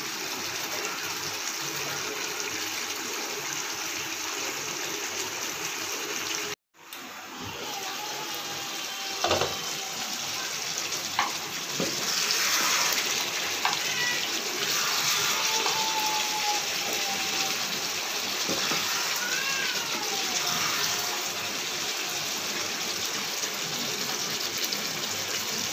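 Mutton curry with potatoes simmering in a kadai, a steady bubbling hiss, with a few knocks and scrapes of a spatula against the pan as it is stirred.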